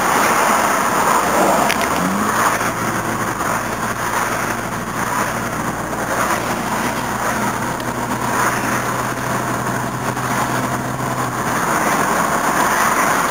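Toyota Cressida's 5M straight-six engine and road noise heard inside the car while cruising, an even rushing sound with a low steady hum that comes in about two seconds in and fades near the end.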